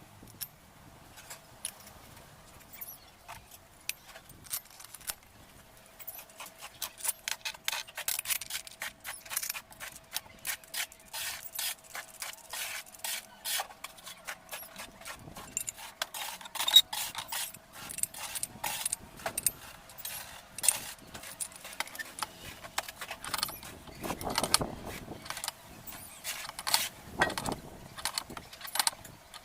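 Irregular clinks, clicks and knocks of metal parts and tools being handled while a washing machine's drive mechanism is put back together, busier after the first few seconds, with one sharper clack near the middle and a few duller thuds later.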